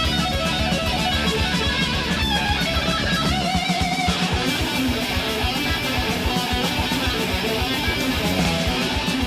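Thrash metal band playing live: distorted electric guitar over bass and fast drums.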